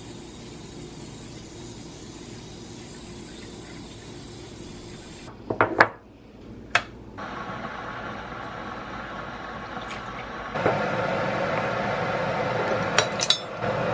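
A few clinks of dishes, then water running from a tap into a vessel, getting louder about ten seconds in, with two more clinks near the end.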